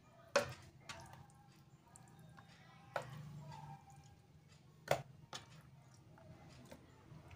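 Raw chicken pieces being tipped from a plastic tray into a plastic tub of liquid marinade: a few sharp plastic knocks, about a second or two apart, with soft wet plops and handling sounds between.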